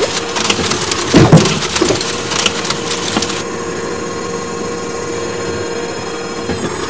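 Cartoon sound effects: sharp cracking and knocking sounds about a second in, then a steady whirring hum as the crane claw lifts the egg, which stops near the end.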